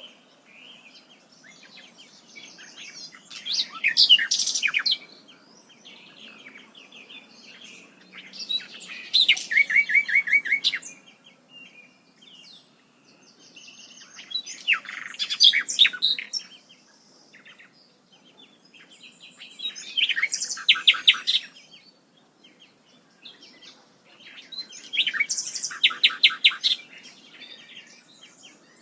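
A songbird singing, five loud phrases of about two seconds each, a few seconds apart. Each phrase is a rapid run of repeated high notes, with soft chirps in between.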